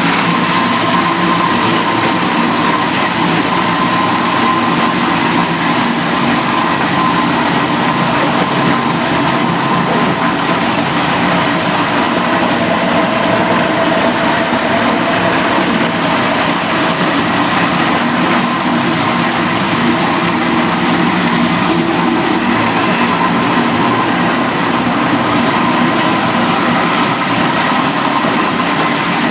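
Plastic recycling machinery running steadily, a loud continuous mechanical din with a few steady motor hums and whines over it.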